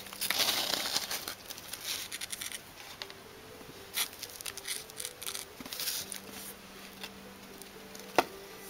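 Plastic binder sleeves and trading cards being handled: crinkling rustles, loudest in the first second, with scattered soft taps and one sharp click near the end.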